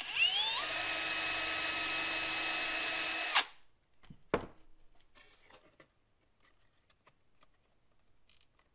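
Cordless drill drilling into a plastic speaker adapter bracket: the motor winds up with a rising whine, runs steady for about three seconds and stops abruptly. A single sharp knock follows, then faint handling.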